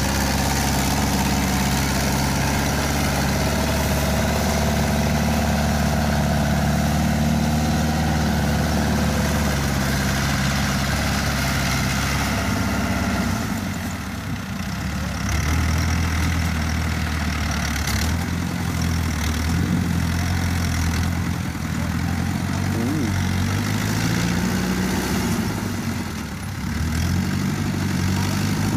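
Mitsubishi-engined tracked rice-hauling tractor running as it drives across the field, a steady engine note that shifts in pitch and dips briefly about halfway through and again near the end.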